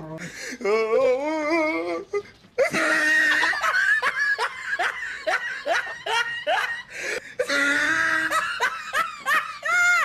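Loud laughter: a short wavering vocal sound, then from about two and a half seconds in a long run of rapid falling "ha-ha" strokes over a dense wash, pausing briefly near the middle before going on.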